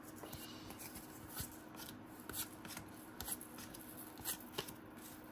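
Faint, scattered ticks and soft rustles of cardboard trading cards from a 1991-92 NBA Hoops pack being handled and flipped through, about a dozen light clicks spread irregularly.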